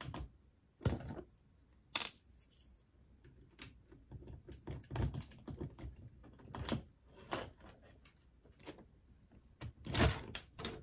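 LEGO bricks being handled and pressed together: irregular small plastic clicks and clatter, with a few louder knocks, the loudest near the end.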